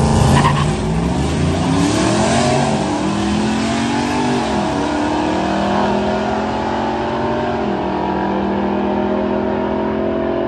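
A cammed Ram pickup's engine launching at full throttle down a drag strip, revving up through the gears. The pitch climbs and then drops at each of several upshifts, while a second car races alongside.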